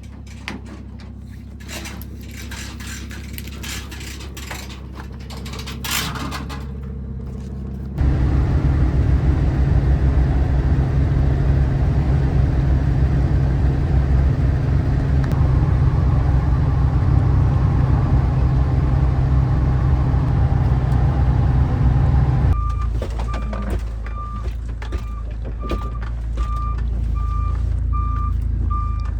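A heavy machine's engine running, with a run of knocks and clatter over it at first. About eight seconds in the engine gets much louder and stays up. In the last quarter it drops back, and a reversing beeper sounds in steady repeated beeps.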